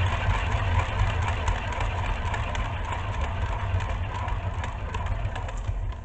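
Hand-spun wooden lazy Susan turntable whirling fast under a paint-covered canvas: a steady rumble from its bearing with a rattling hiss over it. It fades slightly, then stops near the end as a hand halts it.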